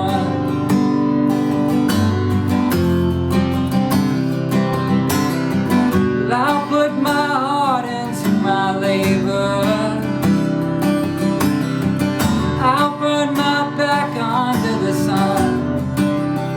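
Acoustic guitar strumming a steady song accompaniment, with a melody line that slides in pitch playing over it in two phrases, one about six seconds in and one about twelve seconds in.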